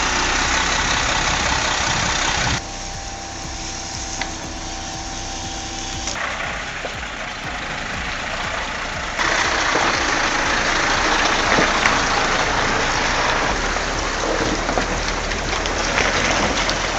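Heavy vehicle engines running, in several clips cut together, so the sound changes abruptly about two and a half, six and nine seconds in. A steady whine runs between the first and second change.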